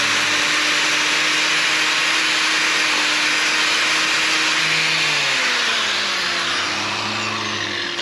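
Handheld power grinder running steadily as it grinds down the horn of a cow's claw during hoof trimming. Its pitch sinks and it eases slightly over the last few seconds.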